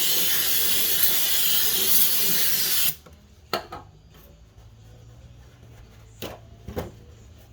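A sustained hiss from an aerosol spray can, held for about three seconds and then cut off sharply, followed by a few light knocks of parts being handled.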